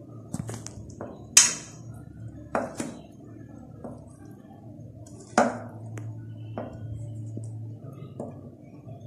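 Metal spoon scraping and clinking against the sides of a pressure cooker while fluffing cooked rice, about eight clinks in uneven rhythm, the loudest about a second and a half in and again about five seconds in. A low steady hum runs underneath.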